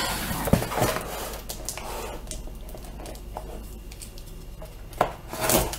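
Handling noise from a small cardboard box being moved about and set on a wooden desk, with rustles and light knocks, then a sharper knock near the end as a box cutter is picked up.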